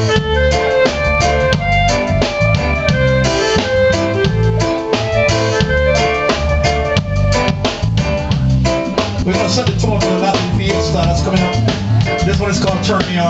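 Live band playing with a drum kit keeping a steady beat, under electric bass guitar and keyboard.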